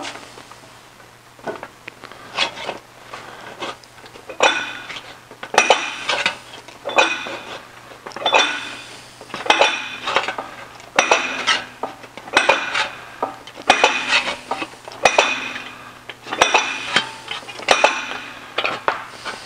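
Metal stretcher working the edge of a sheet-metal motorcycle fender: repeated sharp metallic clanks with a bright ring, light at first, then a heavy stroke about every second and a bit as the jaws grip and stretch the flange.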